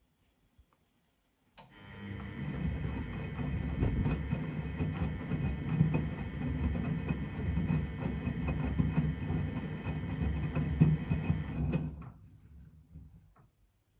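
Miele Novotronic W925 front-loading washing machine turning its drum in the wash rhythm. After a click about a second and a half in, the motor runs the drum for about ten seconds with a steady whine and many small knocks, then stops abruptly.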